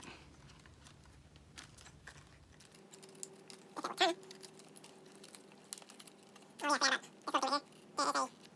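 Faint scattered clicking and rattling of plastic trim parts being worked loose. A domestic cat meows once about halfway through and then three times in quick succession near the end.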